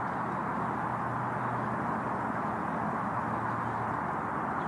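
Steady outdoor rushing noise with a low hum underneath that stops about four seconds in.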